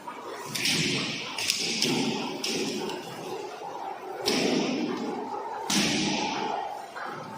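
Cough syrup filling machinery running with a steady hum, cut through by several sharp bursts of hissing with thuds, starting abruptly at uneven intervals.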